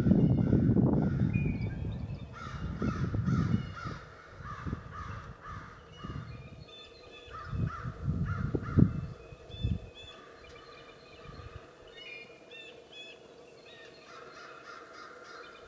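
Common ravens calling in a long series of short, repeated calls. A louder low rumble fills the first few seconds, with a few low thumps partway through.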